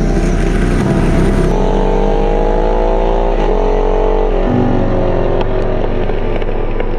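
Ducati Monster S4R's L-twin engine accelerating: its pitch climbs, drops at a gear change about three seconds in, and climbs again before easing off about four and a half seconds in.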